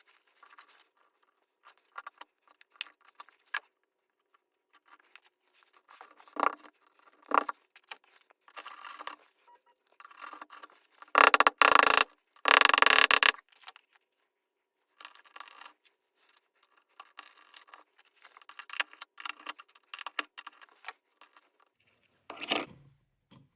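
Hand work on a ceiling fan installation, sped up fourfold: scattered scrapes, clicks and clinks of parts and hardware being handled. Two loud bursts of noise come near the middle.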